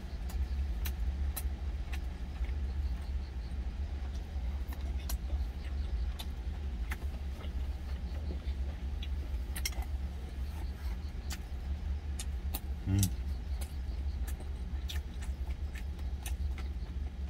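Steady low rumble of an idling truck engine heard inside the cab, with scattered light clicks of wooden chopsticks against a stainless steel lunch container.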